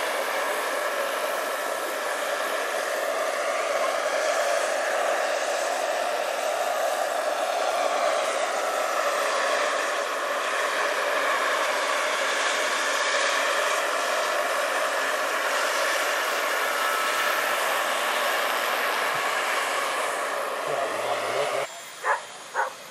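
Large electric model helicopter, a Hughes 500 scale replica with a 2.65 m rotor, in flight: a steady whir of rotor blades and electric motor with a faint whine. Near the end the sound drops away suddenly, followed by two short loud blips.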